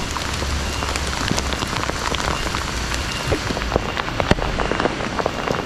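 Steady rain falling, with many sharp separate drop hits ticking over an even hiss.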